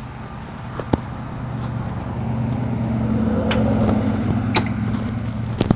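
A 2004 EZGO electric golf cart with a high-speed motor driving slowly over grass: a steady low hum that grows louder about two seconds in, with a few sharp clicks.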